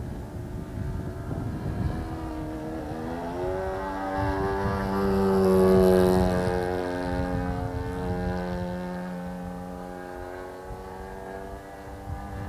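RC biplane's model engine and propeller in flight. The engine revs up about three seconds in and is loudest a few seconds later as the plane passes close. Wind buffets the microphone with a low rumble throughout.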